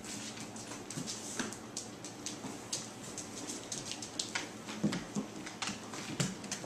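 Five-week-old border collie puppies playing on a hard floor: scattered sharp clicks and taps from their claws and toys, with a few louder knocks near the end.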